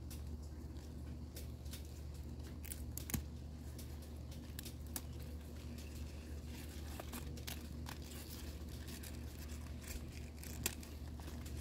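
Leafy garden greens being picked by hand: irregular small snaps and crisp rustles as leaf stems are broken off and the wet leaves brushed. A steady low hum runs underneath.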